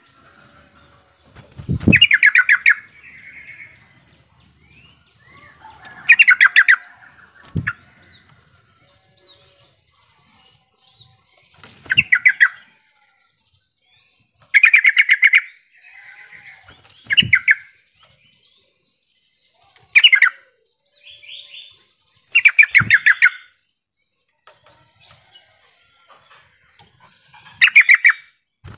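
Yellow-vented bulbul singing: about nine short, loud, bubbling phrases of rapid notes, one every few seconds. Several phrases start with a dull thump.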